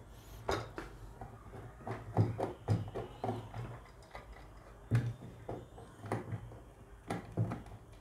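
Scattered clicks and light knocks of hands handling the plastic body of an instant electric water heater tap while working a wire off a terminal inside its open switch housing.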